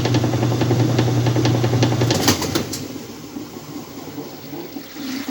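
Whirlpool washing machine agitating: the motor hums under a fast churning of water and clothes, then cuts off with a click a little over two seconds in, and the water noise dies away.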